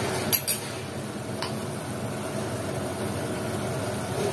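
Steady mechanical hum with a couple of light clicks or taps in the first half-second and another about a second and a half in.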